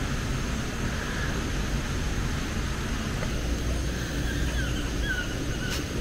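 Wind rumbling on the microphone, with a few faint chirping bird calls over it.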